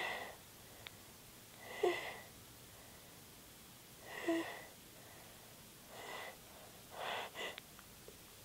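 A woman breathing noisily, with short audible breaths about every two seconds that come closer together near the end.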